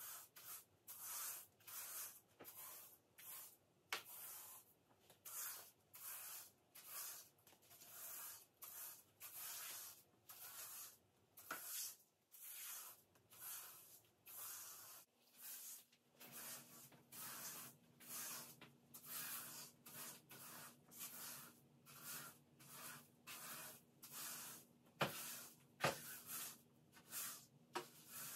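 A surface being rubbed by hand during cleaning, in steady back-and-forth strokes of about one and a half a second, with a few sharp clicks. A steady low hum comes in about halfway through.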